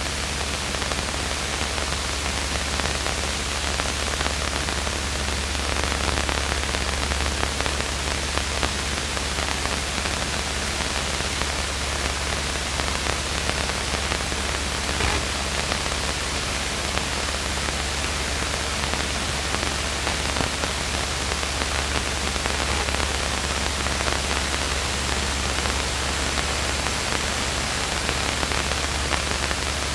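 Steady hiss with a low hum underneath from a light aircraft's intercom and radio audio in flight, with no transmissions on the frequency.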